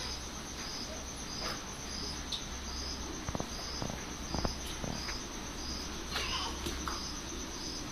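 An insect chirping steadily, a short high chirp about three times every two seconds, over a low steady hum, with a few faint knocks near the middle.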